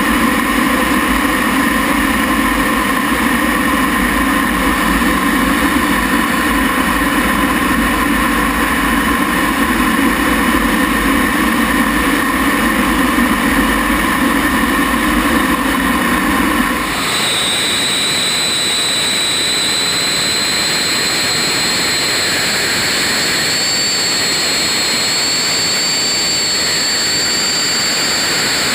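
T-33's Allison J33 turbojet running, a loud steady engine noise. About two-thirds of the way through it changes abruptly to a steady rush with a high whine slowly rising in pitch.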